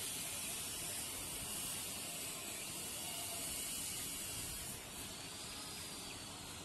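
Yarn and a needle being drawn through jute cloth during cross-stitch, a faint rustle over a steady hiss.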